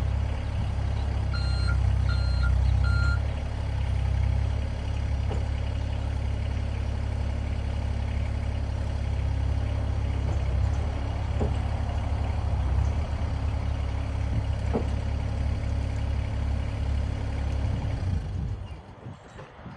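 Excavator's diesel engine running under load as it is driven onto a trailer, its travel alarm beeping three times a little over a second in, with a few sharp metal clanks along the way. The engine shuts off near the end.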